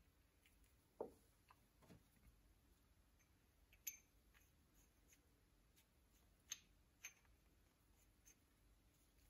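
Near silence, broken by a handful of faint, short clicks and taps of metal parts being handled as a threaded metal hammer handle is screwed by hand into its brass-and-steel head.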